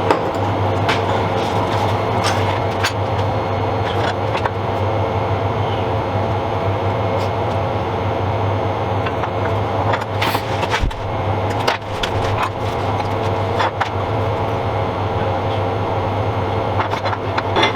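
Electric arc welding on steel parts of a gun cradle's elevation unit: a continuous crackling hiss over a steady low hum, with a few sharper cracks in the middle.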